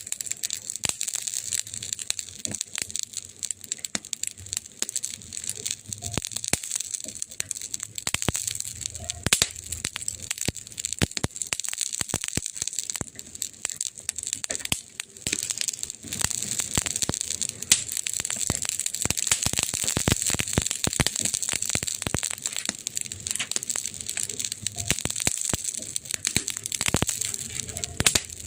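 Burning wood crackling: a steady hiss with frequent sharp pops and snaps, some louder than the rest.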